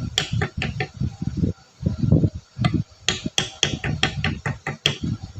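Hammer blows tapping a homemade seal driver to drive the large oil seal into a truck power steering box: a quick run of sharp metal knocks, about four a second, with a brief pause partway through.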